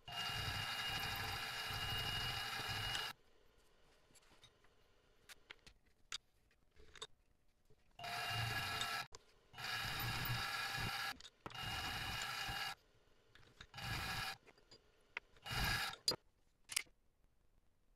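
Benchtop mini milling machine running with a steady whine as it cuts an aluminum part held in its vise. It runs in several bursts that start and stop abruptly. Between the bursts come light clicks and taps of handling.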